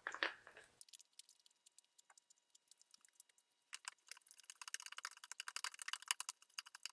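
Threaded end of a Kubota L3560's mechanical top link being spun by hand in its threaded body: a few faint clicks, then, about halfway through, a rapid irregular run of light clicks and rattles as the threads turn.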